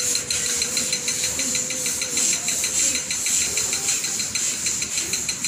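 Several people doing fast, forceful breathing through the nose, a rapid, even rhythm of hissing breaths, as in bhastrika or kapalabhati breathwork. A steady, slightly wavering held tone runs alongside the breathing and dies away about three seconds in.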